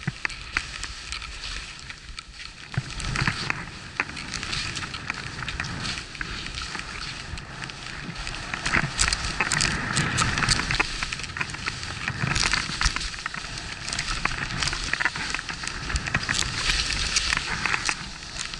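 Skis swishing and hissing through deep, soft snow on a run through trees, with many sharp clicks and knocks from the skis and poles.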